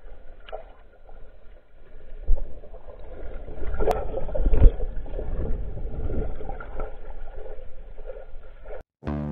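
Muffled underwater churning and rumble from a pedal kayak's propeller spinning under the hull, as picked up by a submerged camera. It surges loudest a few seconds in.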